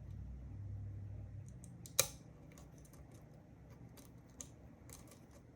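Lock pick and tension wrench working in a Weiser key-in-knob pin-tumbler cylinder fitted with serrated and spool security pins: faint scattered metal ticks, with one sharp click about two seconds in.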